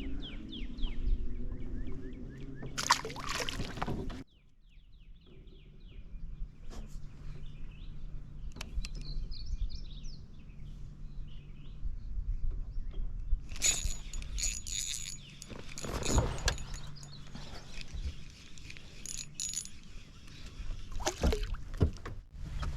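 Handling noises aboard a small fishing boat: scattered knocks and clatter over a low steady hum, with birds chirping faintly.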